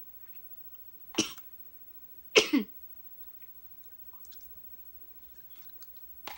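A person coughing twice while eating, the second cough longer and falling in pitch, followed by faint chewing and mouth clicks.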